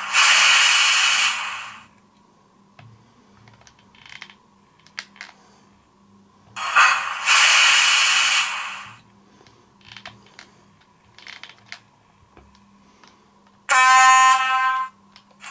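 Sound decoder of a TT-scale class 754 diesel locomotive model playing through its speaker: two hisses of about two seconds each, the second about seven seconds in, scattered light clicks between them, and a short horn blast near the end, over a faint steady hum.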